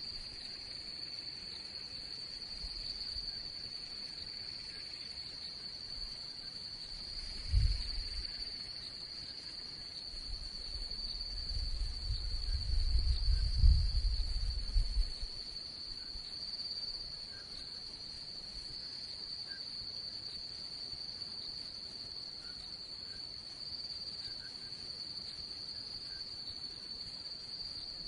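Crickets chirring in a steady, high-pitched night chorus. A short low rumble about a quarter of the way in and a longer, louder low rumble around the middle sit beneath it.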